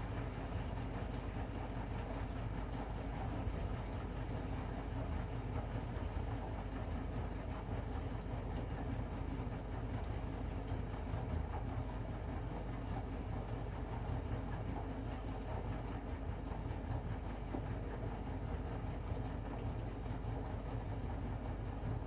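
Bosch front-loading washing machine running a 90° drum-cleaning wash: the drum turns and water sloshes inside, over a steady low hum.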